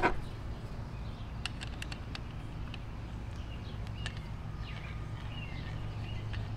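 A steel L-shaped handle rod is picked up off a plywood bench with a short scrape, then fitted into the top of an aluminum shaft with a few light metal clicks. Birds chirp faintly in the later part, over a low steady hum.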